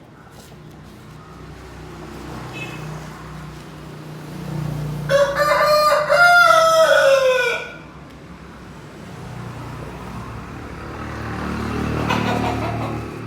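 A game rooster crows once, about five seconds in: one long call of about two and a half seconds that drops in pitch at the end. A low steady hum runs underneath.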